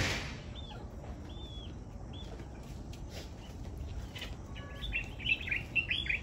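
Small birds chirping: a few single chirps, then a quick run of louder chirps near the end. A brief rustling burst comes right at the start.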